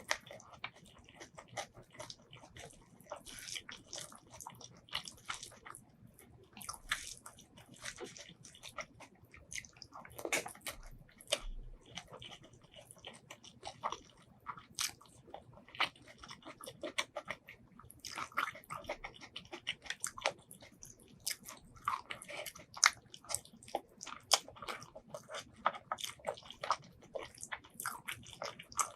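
Close-miked chewing and biting of braised pork ribs and rice: irregular wet smacks and clicks of mouth sounds, with some crunchy bites.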